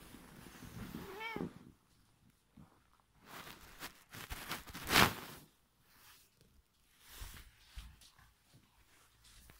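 A domestic cat meows once about a second in, a short call that rises and then falls in pitch. About five seconds in comes a louder short scuffing noise, with softer bumps and rustles around it.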